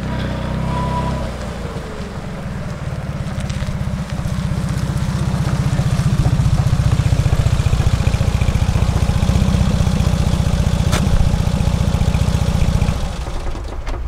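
Vintage Fiat 500's small air-cooled two-cylinder engine running close by with a fast, even low pulse. It grows louder about five seconds in and cuts off about a second before the end.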